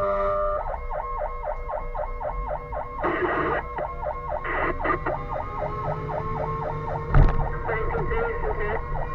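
A fire engine's siren on an emergency run. A steady blaring tone stops about half a second in, and the siren goes to a fast yelp of about four sweeps a second. A few short noisy bursts and one heavy thump about seven seconds in break through the yelp.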